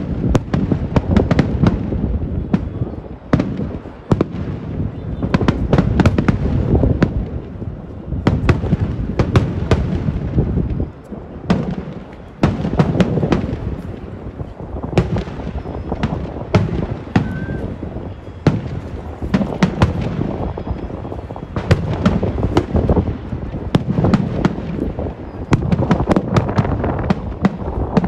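Kerala vedikettu fireworks exploding in a dense, continuous barrage: rapid sharp cracks over a steady low rumble, easing briefly about eleven seconds in.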